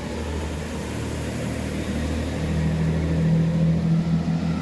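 Diesel engines of a Chiltern Railways Class 165 Turbo diesel multiple unit running as the train moves off, with a steady low rumble. About two seconds in, a strong low drone builds and gets louder as the engines work harder.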